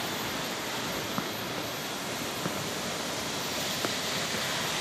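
Steady rushing roar of a tall waterfall heard across the gorge, with a few faint footsteps on stone steps.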